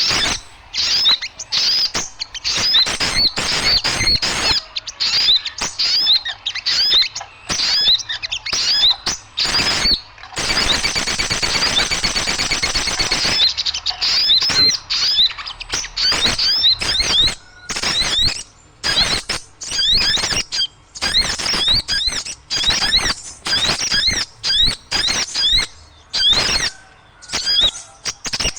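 Small birds chattering noisily: quick runs of short, sharp chirps that sweep down in pitch, with clicky notes between them. Near the middle comes a few seconds of denser, continuous rattling trill.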